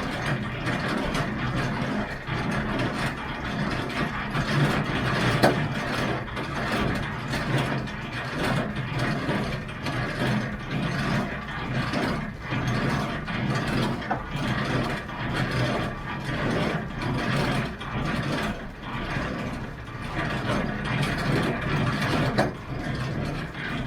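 Continuous rapid clicking of a hand-worked ratchet and gear mechanism.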